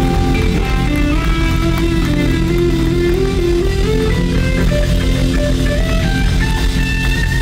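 Live blues-rock band playing: an electric guitar lead over bass and drums, its line of single notes climbing in pitch through the first half.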